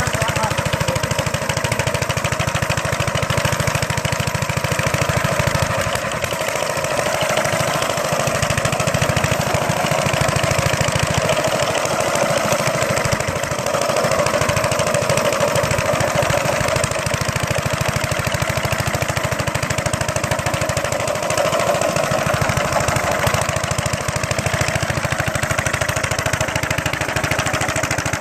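Mayfield motor scythe's small engine running steadily, with an even run of firing pulses and a slight rise and fall in its low end.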